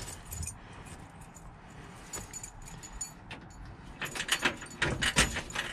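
Car keys on a key ring jangling at the ignition of a 1957 Chevy, a few light clinks at first and then a busy clatter from about four seconds in as the key is worked and turned. No cranking follows: the battery is dead.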